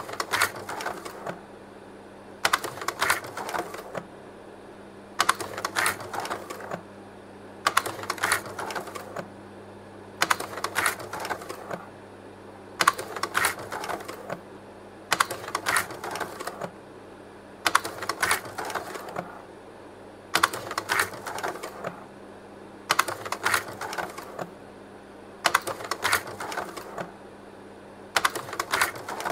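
Leica Pradovit P150 slide projector advancing slides over and over: a cluster of clicks and sliding about every two and a half seconds as each slide changes, over the steady hum of its running fan.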